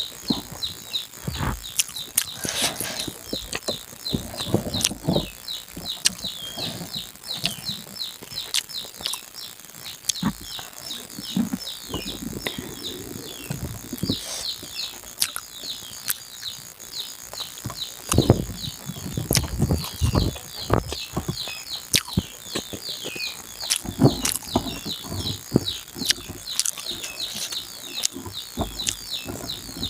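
Close chewing, lip-smacking and clicking mouth sounds of someone eating rice and egg by hand, in irregular bursts. Birds chirping rapidly and steadily in the background throughout.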